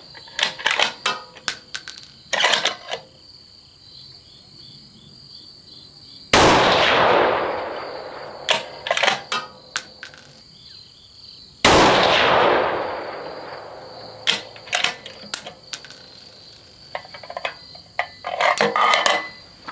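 .308 bolt-action rifle (Terminus Zeus action) with a muzzle brake, fired twice about five seconds apart, each shot echoing away over a couple of seconds. Around the shots the bolt is worked, with quick metallic clicks and clacks.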